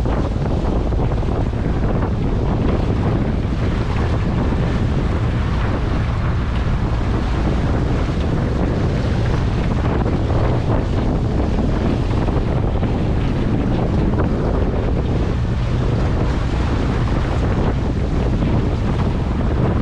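Strong 25 to 30 knot wind buffeting the microphone, with wind-whipped waves and chop around a small dory under way in rough water. A steady, dense rush with a heavy low rumble.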